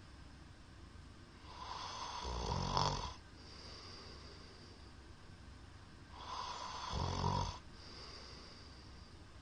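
A middle-aged man snoring in his sleep: two snores about four and a half seconds apart. Each builds up over a second or so and ends in a low rattle.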